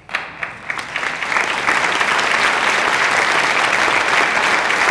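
Audience applauding: a few scattered claps that build within about a second into steady, dense applause.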